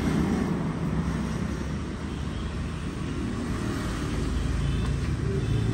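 Steady low rumble of a motor vehicle running on the street, growing louder near the end.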